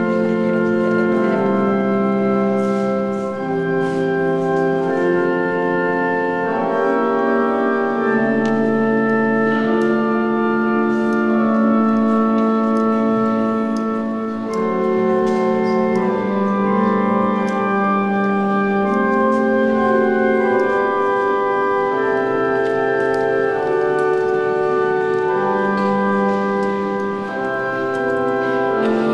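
Organ playing a slow piece in long held chords that change every one to three seconds.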